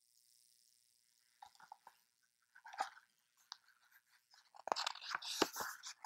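Pages of a hardcover picture book being handled and turned: paper rustling with small irregular clicks and crinkles, starting about a second and a half in and loudest about five seconds in.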